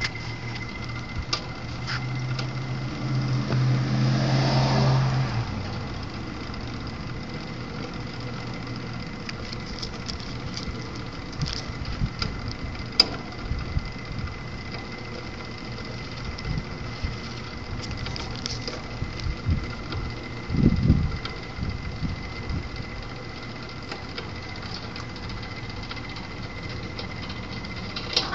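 Viper TC3 slide-gate opener's electric motor running, driving a chain that slides a metal gate along its track: a steady hum with a thin high whine, louder for a few seconds near the start, with scattered clicks and rattles.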